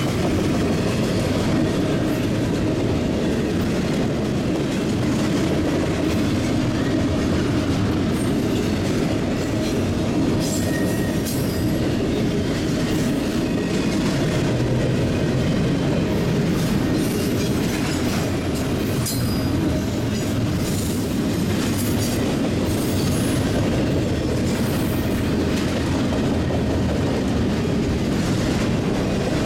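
Union Pacific double-stack intermodal train's well cars rolling past at speed: a steady rumble of steel wheels on rail, with scattered brief high wheel squeals and clicks in the middle stretch.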